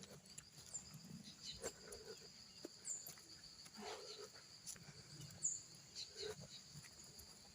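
Faint countryside ambience: a steady high insect drone, with three short falling bird chirps and scattered soft knocks.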